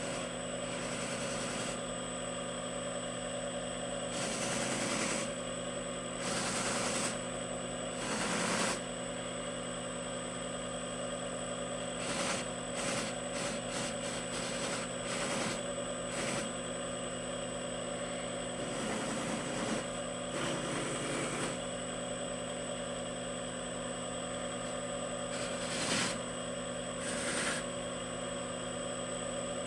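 Slow-turning three-phase AC motor on a variable frequency drive running a sewn buffing wheel: a steady hum with a high whine. A briar pipe bowl pressed against the wheel with red buffing compound gives short rushes of rubbing noise every few seconds, with a quick run of them midway.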